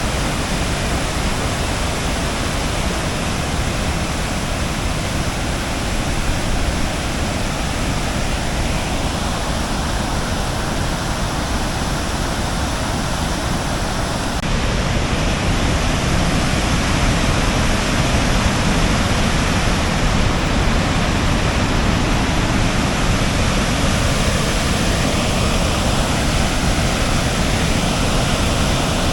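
Water released from Horseshoe Dam falling as a waterfall: a steady, loud rush of water that gets a little louder about halfway through.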